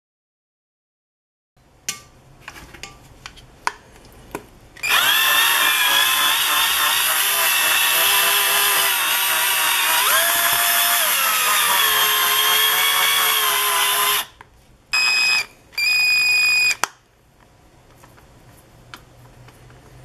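Electric drill spinning a mixing attachment through dough in a metal bowl: its motor whines steadily for about nine seconds, the pitch dipping and shifting partway through, then runs in two short bursts. A few knocks and clicks come before it starts.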